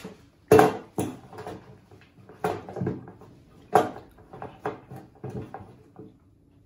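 Cheese being grated on a metal box grater on a wooden table: a run of about ten uneven strokes, the loudest about half a second in.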